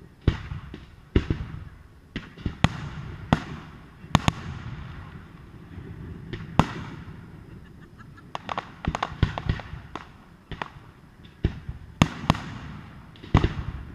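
Aerial fireworks bursting in an irregular series of sharp bangs, a dozen or more, with rumbling echoes between them and some bangs close together near the middle and the end.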